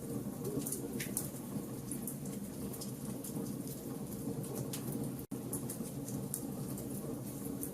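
Wood fire burning in a fireplace: irregular sharp crackles and pops over a steady low rumble. The sound cuts out for an instant about five seconds in.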